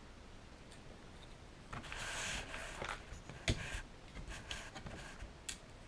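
Faint handling noise from a small Phillips screwdriver working tiny screws on an airsoft shotgun: a soft scrape for about a second, then a sharp click and a few lighter clicks.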